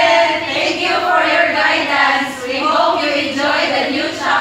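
A group of women singing together, several voices blending continuously.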